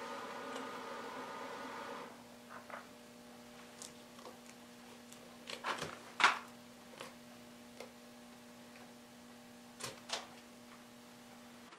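Loose bark being picked and snapped off a green butternut bowl blank by hand: a scatter of short, quiet cracks and snaps, the loudest a little past halfway. A faint steady hum runs underneath, and a louder hum stops about two seconds in.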